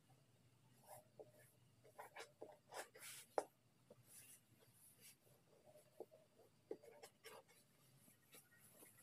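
Faint rustling and scratching of fabric being folded and smoothed flat by hand on a tabletop, in short scattered strokes, with a sharper tick a little after three seconds in.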